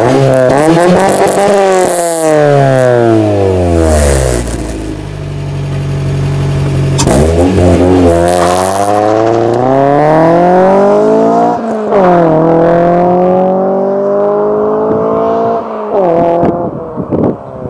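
Honda B18C four-cylinder VTEC engine swapped into a Civic hatchback, through a Yonaka exhaust with no catalytic converter. Early on the revs fall back and hold low. Then, about seven seconds in, it pulls away hard, rising through first gear, with a sharp drop at the shift to second and another shift near the end as the car fades into the distance.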